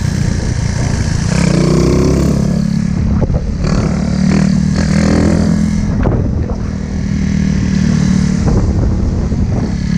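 Small motorcycle engine running under throttle, its note rising and falling as the rider revs it while practising wheelies.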